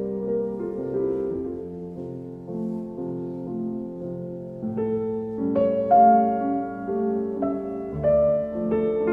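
Background piano music of held notes and chords, growing fuller and higher about halfway through.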